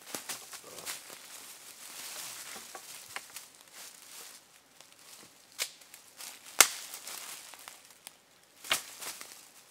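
Rustling and scraping in dry leaf litter on a forest floor as two men work at the ground and handle sticks, with three sharp cracks in the second half, the middle one loudest.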